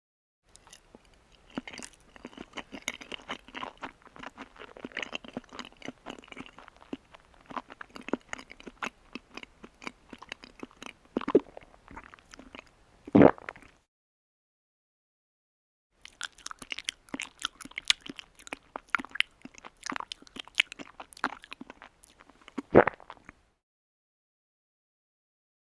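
A person chewing crunchy food close to the microphone, with rapid irregular crunches. There are two runs of chewing with a pause of about two seconds between them, and each run ends with one much louder crunch.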